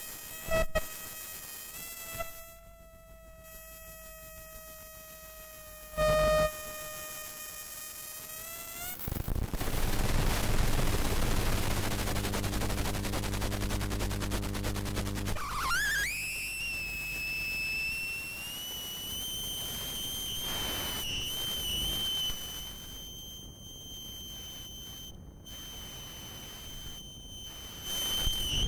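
Live experimental electronic noise from a performer's table of devices. Steady shrill tones with overtones give way about nine seconds in to harsh, dense noise over a low hum. About sixteen seconds in, a tone sweeps sharply upward and then holds high, wavering slightly, with brief cut-outs near the end.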